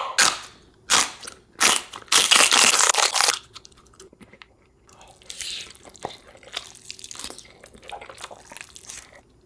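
Close-up eating: a few loud crunchy bites in the first three seconds or so, then quieter chewing.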